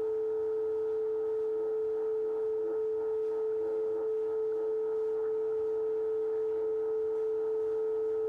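Steady audio tone from an Icom IC-730 HF receiver tuned to WWV on 10 MHz, heard while the Tektronix 180A's crystal oscillator is being zero-beat against the time station. It is one strong, unwavering tone with fainter overtones above it.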